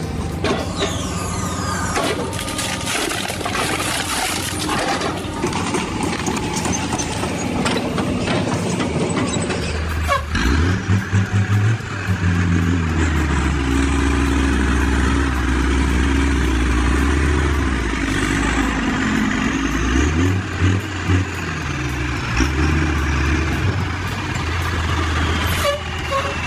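Heavy machine engine running under load: a dense noisy clatter at first, then from about ten seconds in a deep, steady engine drone that surges and dips a few times.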